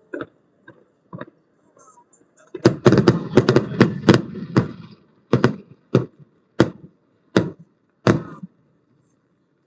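Fireworks going off: a rapid run of bangs about three seconds in, then five single bangs a little under a second apart.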